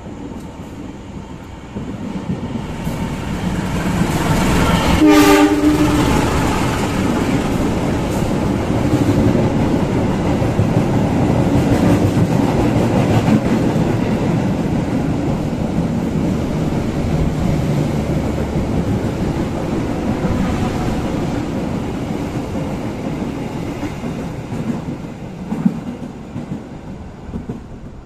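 A Brantas passenger train passes straight through the station at speed. There is one short horn blast about five seconds in as it approaches, then the steady rumble and wheel clatter of the coaches going by, which dies away near the end.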